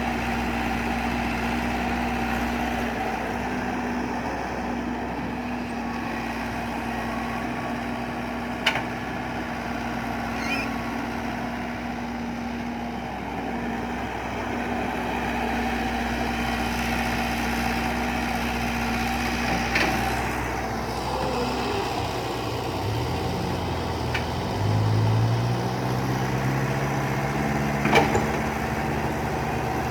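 Excavator engine running steadily, then revving up, rising in pitch, about three-quarters of the way through. A few sharp clanks sound now and then.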